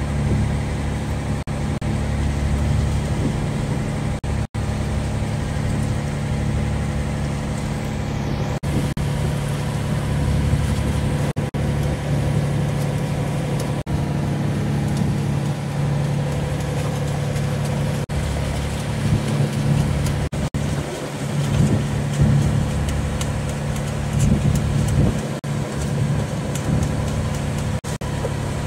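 A fishing boat's engine running steadily, a constant drone, with a few very brief gaps.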